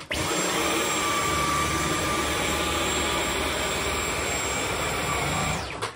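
Dyson V11 Absolute cordless stick vacuum running in eco mode while cleaning a rug: a steady motor hiss with a thin high whine, switched on right at the start and cut off near the end.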